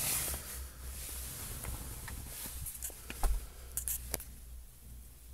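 Handling noise: a few light clicks and taps, the sharpest two close together about four seconds in, over a steady low hum.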